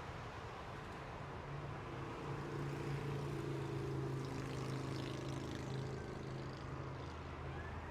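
Road traffic: a steady hum of passing vehicles, with one vehicle's engine drone swelling from about a second and a half in and fading away near the end.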